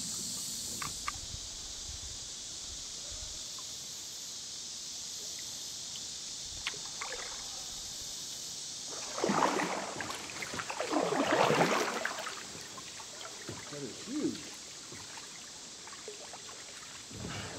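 Kayak paddle splashing in the river: two longer surges of splashing about halfway through and a shorter one a little later, over a steady hiss.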